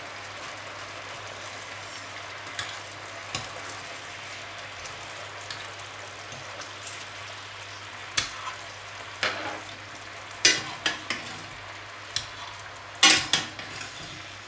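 Hake steaks sizzling steadily in a frying pan of oil and cockle broth, with sharp clicks of metal tongs against the pan as the steaks are turned over, the clicks coming more often in the second half and loudest near the end.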